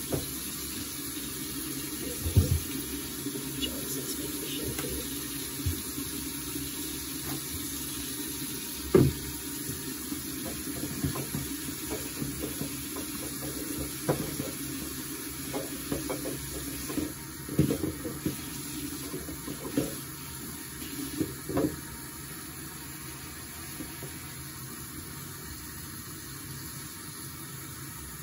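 Bathroom sink tap running while a doll's hair is washed under it, with a few sharp knocks and splashes against the basin.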